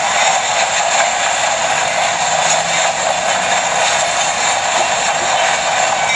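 CSX freight train rolling past at a crossing: a loud, steady noise of the cars and wheels on the rails that does not let up.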